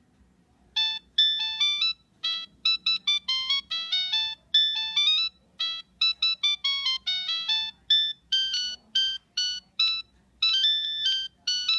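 Nokia 3586 mobile phone playing one of its built-in ringtones: a quick melody of short beeping notes, one note at a time, starting about a second in and still going at the end.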